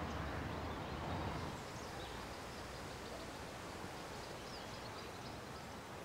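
Faint outdoor ambience: a steady low hiss with a few faint, short bird chirps. The hiss drops a little about one and a half seconds in.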